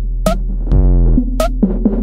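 Electronic background music with a drum-machine beat over a deep, sustained bass, with synth tones that glide downward in pitch.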